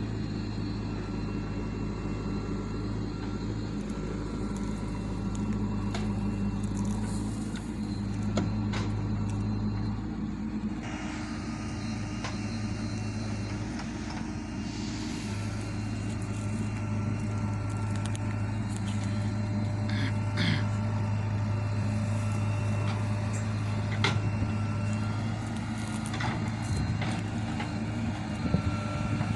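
JCB 3DX Xtra backhoe loader's diesel engine running steadily while it works, with scattered clanks and knocks. There is a stretch of hiss around the middle.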